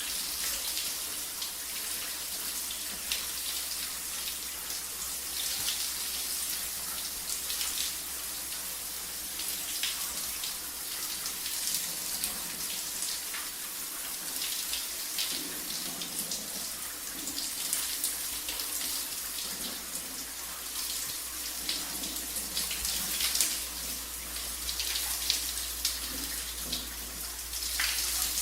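Shower water running steadily, spray hissing and spattering.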